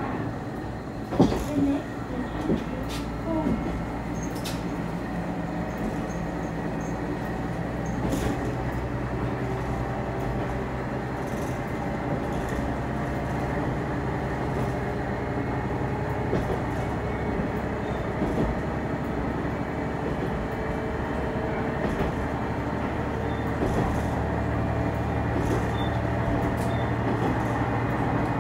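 Interior running sound of a Hi-Mo 330-700 diesel railcar under way: a steady drone from the underfloor diesel engine mixed with wheel-on-rail rumble. A few sharp knocks come in the first few seconds.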